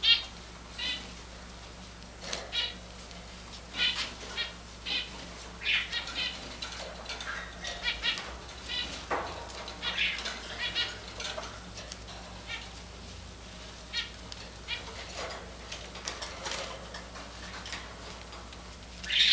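Java sparrows (Java finches) giving short chirping calls at irregular intervals, one louder chirp near the end.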